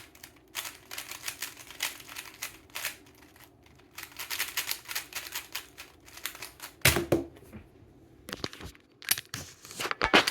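Speed cube being turned fast: rapid plastic clicking and clacking as the layers are turned, in quick flurries with brief pauses. There is one louder knock about seven seconds in.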